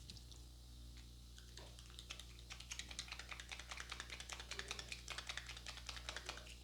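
Rapid run of light, crisp taps, many a second, starting about two seconds in and continuing to near the end: a barber's hands tapping and chopping during a head massage.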